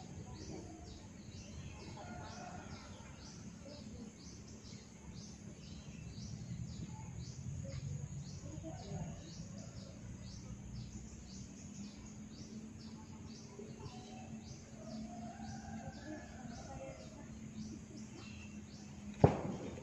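A single sharp, loud crack near the end: a neck being cracked by a masseur's twist. Before it, a high chirping repeats about twice a second over a low steady hum.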